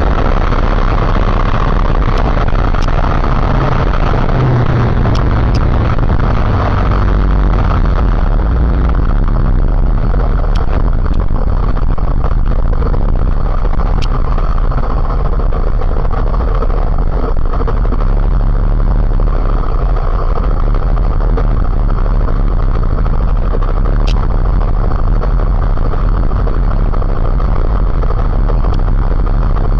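Motorcycle on the move, heard from on board: a steady, loud mix of engine and rushing noise with no change in pace.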